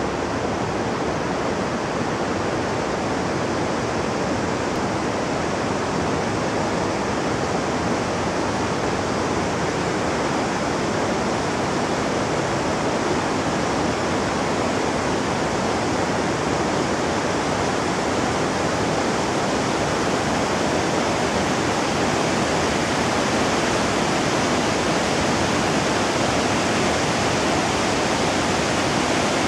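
Steady rushing of running water, an even noise with no separate sounds in it.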